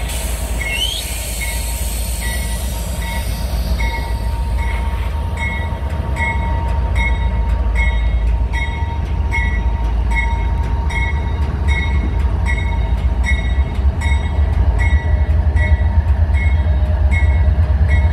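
GE diesel freight locomotives rumbling past, with a locomotive bell ringing about twice a second throughout. A short rising wheel squeal comes about a second in, and the rumble grows a little louder as the ES40DC draws closer.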